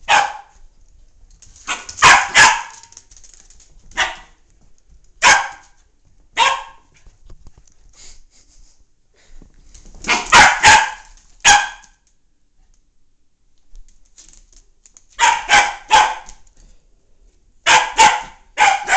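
Welsh terrier puppy barking in play at a light spot it is chasing: sharp, high barks, sometimes single and sometimes in quick runs of two to four, with short pauses between.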